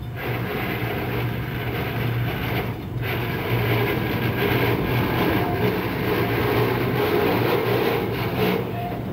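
A freight train passing a grade crossing: its rumble is steady at first, breaks off briefly about three seconds in, then returns louder as freight cars roll past.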